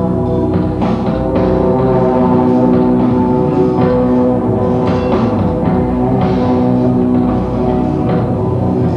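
A band playing live: long held chords over drum hits.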